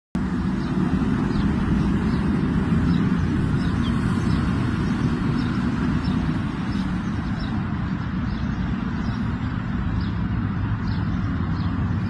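Steady hum of road traffic, with faint short high chirps recurring every second or so.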